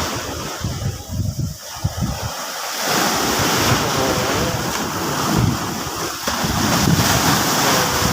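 Sea surf breaking and washing against the shore, with wind buffeting the microphone in uneven gusts.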